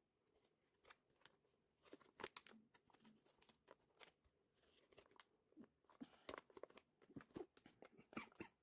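Quiet, irregular clicks and rustling of hands handling small plastic keyboard parts and their packaging.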